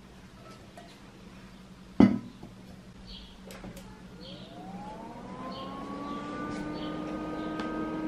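Desktop computer being switched on: a sharp click about two seconds in, then its fans spin up with a rising whine that levels off into a steady hum, growing louder toward the end.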